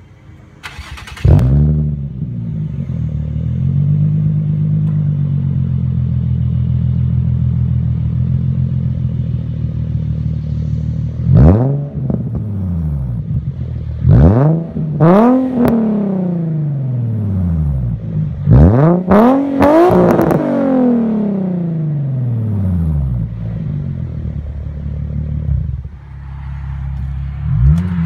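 A 2008 Infiniti G35 sedan's VQ35HR V6, breathing through a muffler-and-resonator-delete exhaust, fires up about a second in and settles into a steady idle. It is then free-revved three times: first a single blip, then a pair of quick blips, then a cluster of three or four. Each time the pitch climbs and falls back to idle.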